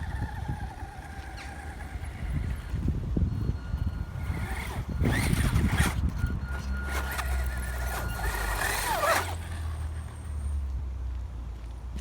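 FTX Viper RC car's motor whining up and down as it is driven, with a pitch that sweeps down sharply about nine seconds in. Its tyres crunch over the ground around five seconds in, with wind rumbling on the microphone.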